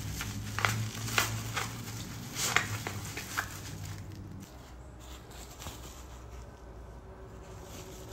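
Cotton fabric rustling and crinkling as a sewn glasses case is worked right side out through a small opening, with a few sharp crinkles in the first few seconds. A low steady hum underneath stops about halfway through.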